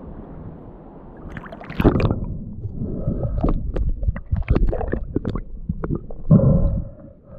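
Sea water lapping at the surface, then a splash about two seconds in as a spearfisher dives under. After that comes muffled underwater sound: low rumbling and bubbling with many short clicks, and a louder low surge near the end.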